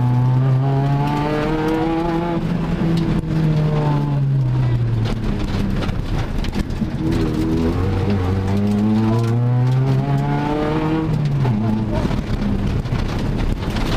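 Volkswagen Golf Mk2 GTI's four-cylinder engine, heard from inside the rally car's cabin, pulling hard on a special stage. Twice the revs climb under acceleration and then fall away as the driver lifts off: once over the first five seconds, and again from about seven to eleven seconds, where the note drops off sharply.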